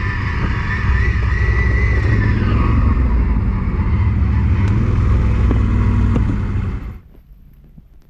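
ATV engine running under load, with a wavering high whine over it for the first couple of seconds; the sound cuts off abruptly about seven seconds in.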